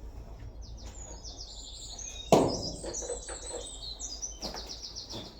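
A songbird singing rapid, high, trilled phrases. About two seconds in there is one loud, sharp knock, and a few fainter knocks follow.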